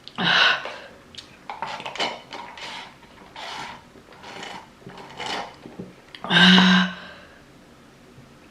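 A woman coughing repeatedly, about eight harsh coughs with the loudest and longest about six and a half seconds in, from choking on a piece of noodle that went down the wrong pipe.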